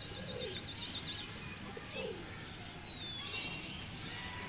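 Domestic pigeons cooing twice, each coo a short falling call. Over them, a high wavering whistle fades out about a second in, and then a long, slowly falling high whistle follows.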